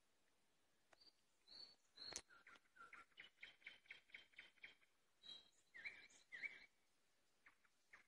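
Nightingale singing. After about a second come a few short high notes, then a fast run of repeated notes at about five a second, then two louder phrases. The song stops near the end.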